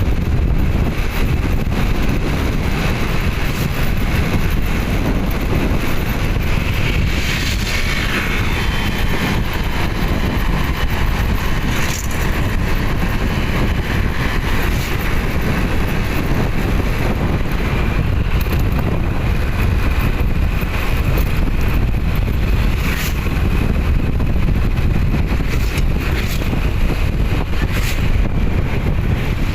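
Steady wind rushing over the microphone mixed with the running noise of a moving vehicle.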